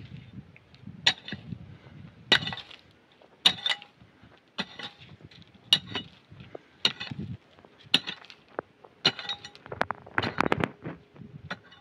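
A pick chopping into hard, stony dirt, about one blow a second. Each blow is a sharp metallic clink, with a low scrape and rustle of loosened soil between strikes.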